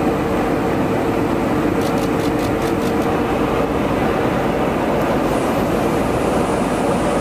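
Steady in-flight cabin noise inside a KC-135R Stratotanker, its engines and rushing air, with a steady hum that fades out about halfway through.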